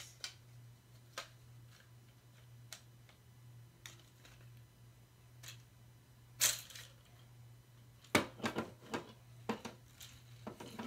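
Hard plastic parts of an Orbeez jewelry-maker toy clicking and knocking as they are handled and fitted together: scattered light clicks, a louder clack about six and a half seconds in, and a quick run of clicks near the end. A steady low hum runs underneath.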